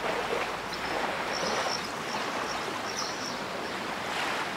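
Sea water washing in a steady hiss that swells and eases, with a few faint short high chirps.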